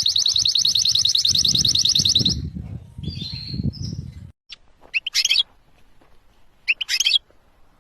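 Domestic canary singing: a fast, rapidly repeated high trill for the first couple of seconds, then a few softer notes. After a pause come two short chirps about two seconds apart.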